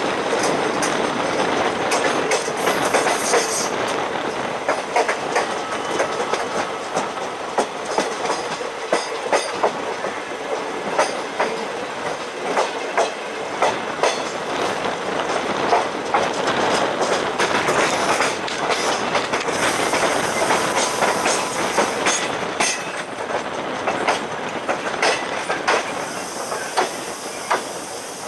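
Passenger train coaches rolling through a junction on a curve, their wheels clattering irregularly over rail joints and points above a continuous rumble.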